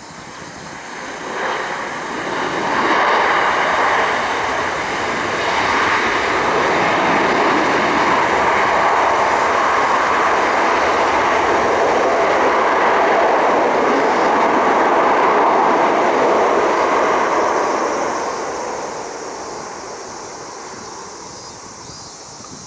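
Boeing 787's Rolls-Royce Trent 1000 jet engines in reverse thrust during the landing rollout on a wet runway. The noise swells about two to three seconds in, holds loud and steady, then dies away from about eighteen seconds as the airliner slows.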